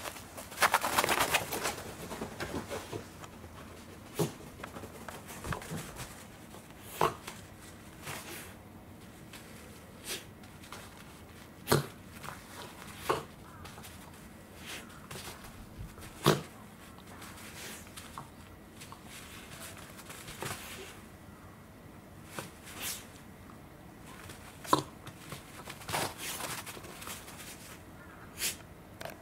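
A corgi playing with a tennis ball on artificial turf: about a dozen scattered sharp clicks and knocks from the ball and the dog's paws and mouth, with a rustling scuffle in the first two seconds.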